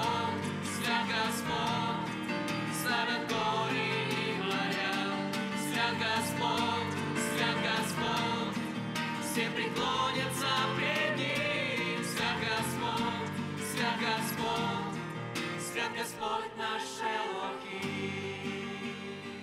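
Christian worship song: voices singing over instrumental backing with a steady beat.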